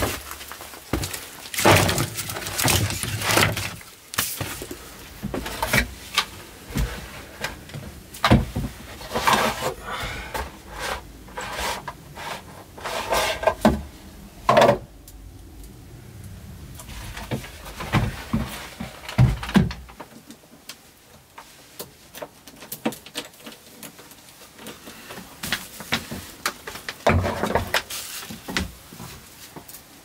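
Irregular knocks, clunks and handling noises of gear and wood being moved about in a small wooden room, over a low rumble. About two-thirds of the way in the rumble stops and the knocks thin out to scattered light clicks.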